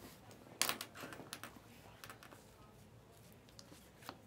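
A stack of glossy trading cards flipped through by hand, each card slid off the stack and tucked to the back with a crisp flick or click. The sharpest click comes about half a second in, a quick run of them follows around a second in, and one more comes near the end.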